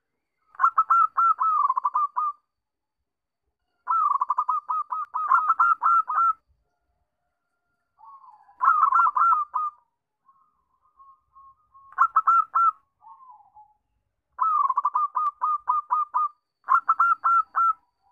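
Zebra dove (perkutut) cooing: six bouts of rapid, staccato cooing notes, each bout a second or two long, separated by short pauses with a few softer notes between.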